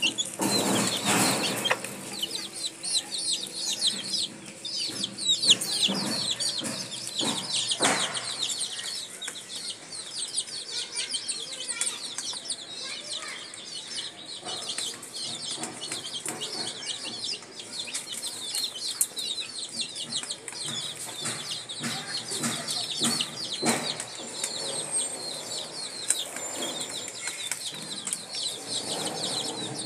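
A brood of chicks peeping nonstop, many short high chirps overlapping, while the mother hen clucks low now and then. A few sharp knocks stand out near the start and about five and eight seconds in.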